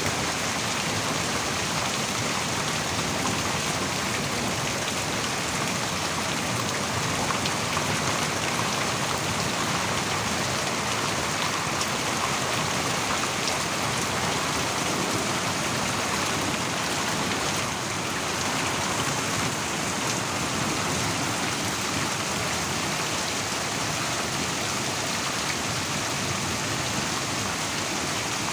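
Heavy rain pouring down in a steady, unbroken hiss, with no distinct thunderclaps.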